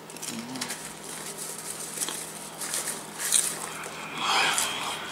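Crunchy popcorn being chewed with scattered crackles, then a hand rummaging through popcorn in a plastic bowl about four seconds in.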